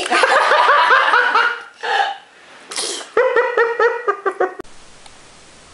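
A baby giggling in two bouts of quick, high-pitched laughs, each set off by a short breathy burst. The laughter cuts off suddenly about three-quarters of the way in.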